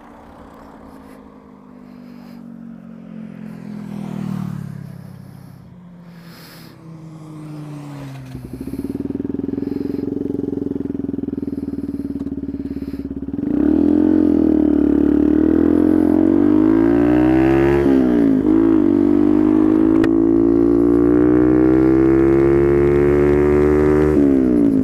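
A passing car's engine note falls in pitch and fades. Then a 125cc motorcycle engine comes up to revs, pulls away and accelerates, getting much louder. Its pitch climbs in runs broken by a gear change about two-thirds of the way through and another near the end.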